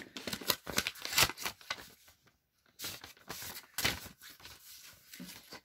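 Paper rustling and scraping as a greeting card is slid out of a paper envelope, in irregular short rustles with a brief pause a little past two seconds in.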